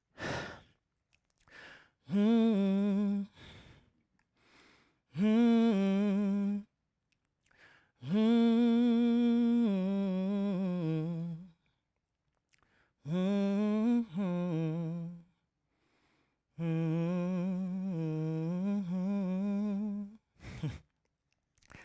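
A man humming a slow tune in five held phrases, with notes that step up and down and short breaths between the phrases. He hums to calm his nerves.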